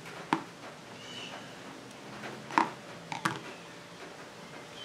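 Sharp metal clicks and taps, about four of them, from small screws and a hand tool on the aluminium crankcase of an OS FF-320 model engine being taken apart. A couple of faint high chirps sound between them.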